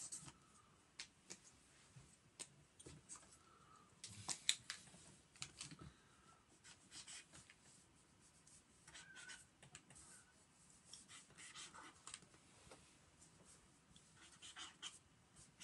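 Faint scratching of a marker pen stroking across sketchbook paper, in short spells with pauses between them.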